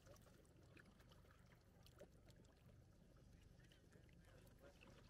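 Faint, steady low drone of a tour boat's engine.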